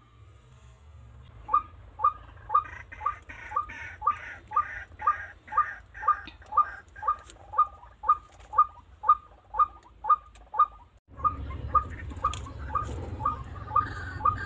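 A bird calling a long, even series of short, downward notes, about two a second. The series breaks off briefly about eleven seconds in and then carries on over a louder low rumble.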